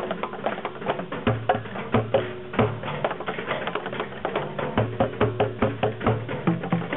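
Group percussion playing: a dense, fast run of sharp wood-block-like strikes over recurring low drum thuds.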